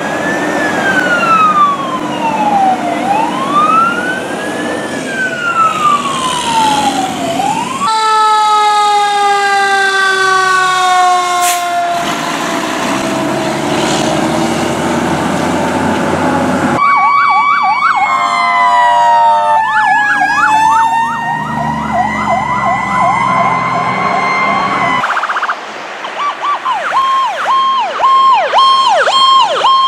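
Fire apparatus sirens in a run of clips. First a wail rises and falls about every four seconds. After a cut a siren slides slowly down in pitch, and later a fast yelp runs over a steady tone, ending in a rapid warbling yelp.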